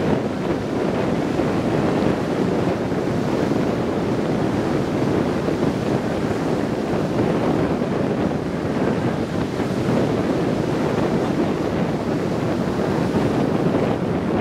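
Heavy hurricane surf breaking and washing ashore in a steady, continuous rush, with wind buffeting the microphone.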